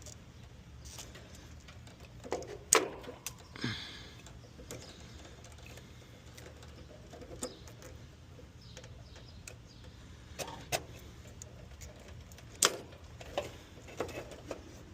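Scattered clicks and taps of small metal parts and hand tools being handled while low-voltage wires are connected to an air-conditioner contactor. Two sharp clicks, about 3 seconds in and again near 13 seconds, and a brief scrape just before 4 seconds, over a faint low hum.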